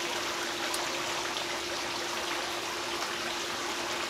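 Steady rushing hiss, like running water, with a faint constant hum underneath.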